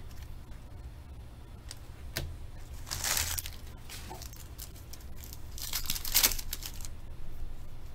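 Foil trading-card pack wrappers being torn open and crinkled by hand, in two short bursts about three and six seconds in, with a few light clicks between them.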